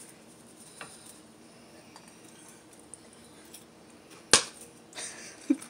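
Kitchen handling sounds: a few faint light ticks, then one sharp clink about four seconds in as a ceramic bowl knocks against cookware, followed by a couple of softer knocks near the end.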